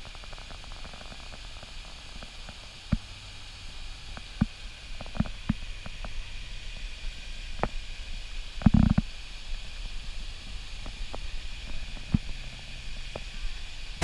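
Camera handling noise: a low muffled rumble with scattered light knocks and taps, and one heavier thump about nine seconds in.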